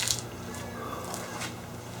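A brief soft rustle at the start, then a few faint scuffs, over a steady low electrical hum.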